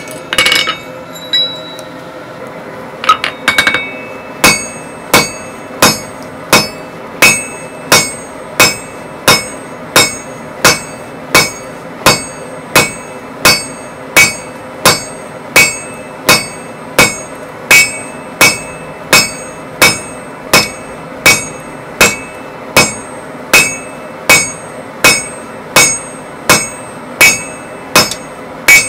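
Hand hammer striking a red-hot steel bar on an anvil horn in a steady rhythm of about one and a half blows a second, each blow ringing; the hot bar, held in tongs, is being bent around the horn. A few metal clinks of tongs and steel on the anvil come before the hammering starts, about four seconds in.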